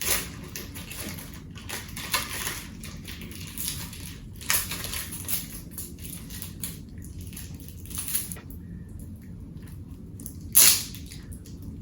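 Chewing of a fruit roll-up close to the microphone, with a string of short crackly, squishy bursts, the loudest near the end.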